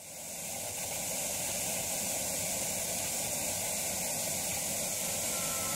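A steady, even hiss like white noise, fading in at the start and holding level; a few musical tones begin to come in near the end.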